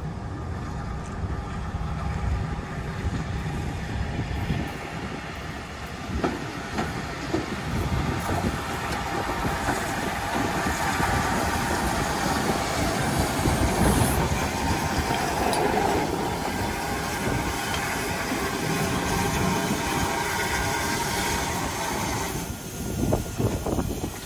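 GWR Castle class 4-6-0 steam locomotive 5043 Earl of Mount Edgcumbe rolling slowly past with its tender, wheels clicking over rail joints. The sound grows louder as the engine nears and drops away about two seconds before the end as it slows to a stand.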